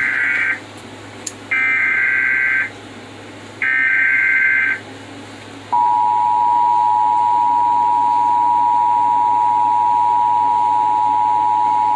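Emergency Alert System SAME header: the tail of one burst of warbling digital data tones and then two more bursts of about a second each, followed from about six seconds in by the steady two-tone EAS attention signal (853 and 960 Hz). Together they announce an incoming tornado warning.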